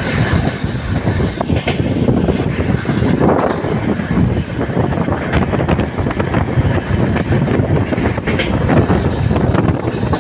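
Moving passenger train heard from an open window or door: a steady loud rumble of wheels on the rails with a few sharp clacks now and then.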